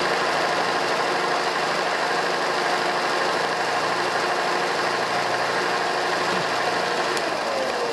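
Vevor combination belt and disc sander running unloaded at full speed, a steady motor hum with belt and disc whir, reading about 70 dB on a sound meter. Near the end there is a click and the pitch starts to fall as the machine winds down.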